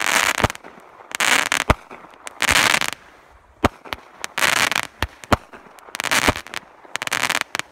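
Aerial fireworks going off about once a second. Sharp single bangs of bursting shells alternate with bursts of crackling from the falling stars.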